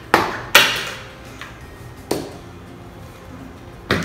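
Plastic-tipped safety darts hitting a dartboard and the wooden table: four sharp knocks with a short ring, two close together near the start, the second the loudest, one at about two seconds and one near the end.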